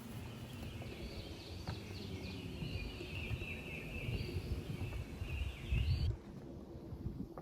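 Forest ambience: birds calling over a low rumbling noise. The birdsong cuts off abruptly about six seconds in, just after the rumble is at its loudest.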